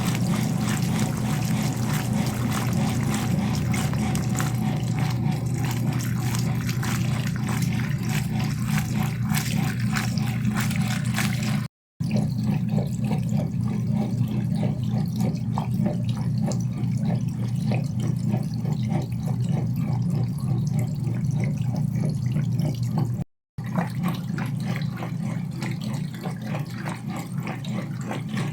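GE Filter-Flo top-loading washing machine agitating a load: a steady motor hum under continuous sloshing and churning water. The sound cuts out briefly twice.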